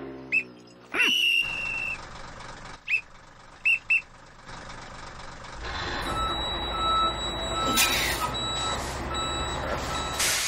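Blasts on a whistle: a short tweet, a longer one lasting about a second that drops slightly in pitch and then holds, and three quick tweets. Then a truck's engine starts running low and a reversing alarm beeps in a steady on-off pattern, broken by two sharp hisses.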